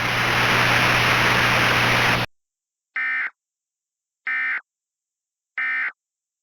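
Steady hiss over a low hum that cuts off about two seconds in, followed by three short, identical buzzing data bursts about 1.3 seconds apart. These are the Emergency Alert System end-of-message (SAME) tones that close the alert broadcast.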